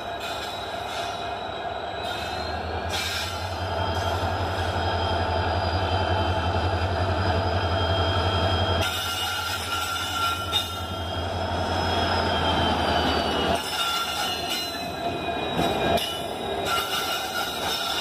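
Two coupled WDG4 diesel-electric locomotives (EMD GT46MAC type) running light past at close range. Their engines make a deep, steady drone that swells and holds through the middle, over thin high whining tones that drift slowly in pitch.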